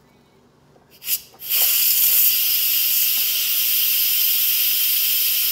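Instant Pot pressure cooker's steam release valve turned to venting after a natural release, letting out the remaining pressure. A couple of short spurts about a second in give way to a loud, steady hiss of escaping steam.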